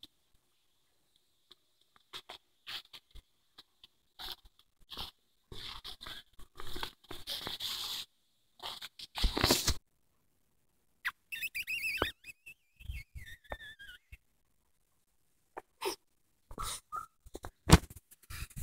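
Olde English Bulldogge puppies scuffling at play, with scattered knocks and scrapes. A little past halfway, one puppy gives a high whine that wavers and drops in pitch.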